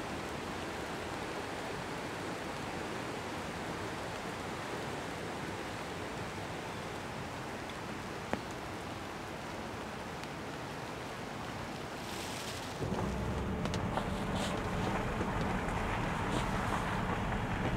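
Steady hiss of falling rain. About 13 seconds in it gives way to the inside of a Tesla electric car rolling along: a louder low rumble of tyres on the wet road, with scattered ticks of rain on the windshield.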